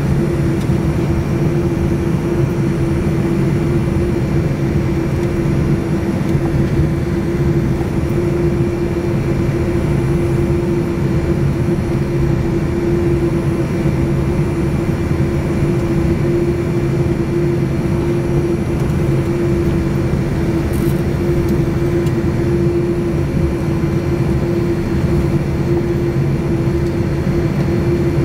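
Cabin noise of a Boeing 787-9 taxiing, heard from a window seat over the wing: a steady hum from its turbofan engines at taxi power, with one strong held mid-pitched tone over a low rumble.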